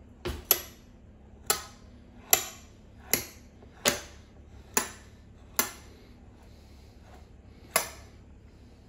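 A metal fork clinking as its tines press down and crimp the edge of a pastry pie lid: about nine sharp clinks, roughly one a second.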